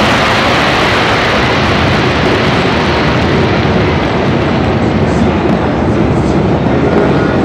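Large fireworks display: a dense, continuous rumble and crackle of shells and fountains, the bangs running together into one loud wash. The high crackle thins out after a couple of seconds while the low rumble carries on.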